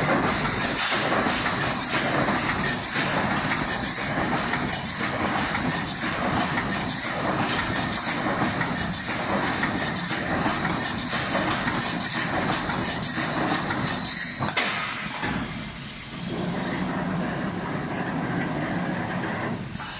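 Automatic wire mesh panel welding machine running, its welding heads and mesh feed clattering in a regular beat as it spot-welds the mesh. About three-quarters of the way through the beat stops, leaving a steadier machine hum.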